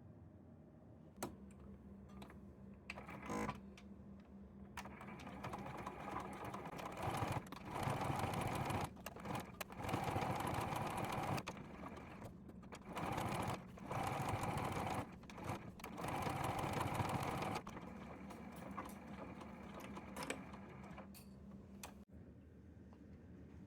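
Electric sewing machine stitching in several runs of a few seconds each, with short pauses between them. A low steady hum starts about a second in and runs under the stitching.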